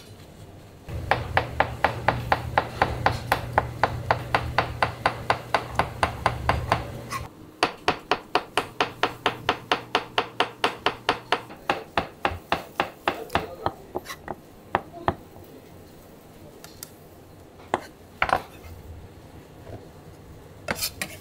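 A kitchen knife rapidly slicing button mushrooms on a plastic cutting board: quick, even knocks of the blade on the board, about five a second, in two long runs. The strokes thin out to a few scattered taps near the end.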